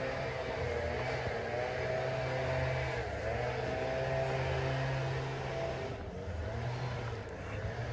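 A motor vehicle's engine running steadily, with a low hum and a higher whine that wavers slightly in pitch.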